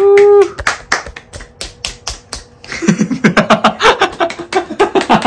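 Two people clapping their hands in quick, uneven claps, joined about three seconds in by excited voices over the clapping.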